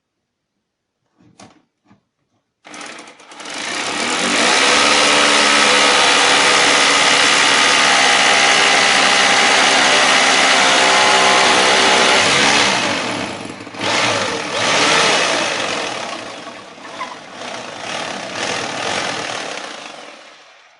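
Power drill boring a hole down through a wooden floorboard toward the concrete beneath, for an anchor bolt. It starts about three seconds in, runs loud and steady for about ten seconds, then surges and drops unevenly under changing pressure until it stops near the end.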